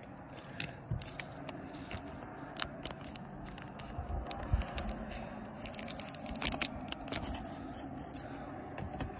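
Clear plastic sleeve crinkling and scraping against a hard plastic graded-card slab as it is handled and slid out, a run of sharp crackles that is busiest in the middle, over a steady background hiss.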